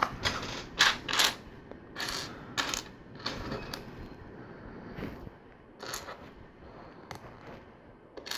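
Plastic LEGO pieces being handled and pressed together: irregular sharp clicks and short rattles, busiest in the first few seconds.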